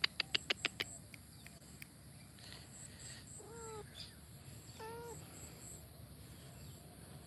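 Domestic cat giving two short meows about a second and a half apart, after a quick run of about seven sharp clicks at the very start.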